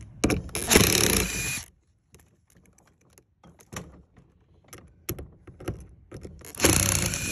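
Cordless impact driver backing screws out of a metal gate hinge plate: two loud runs, one at the start lasting about a second and a half and another near the end, with faint clicks of handling in between.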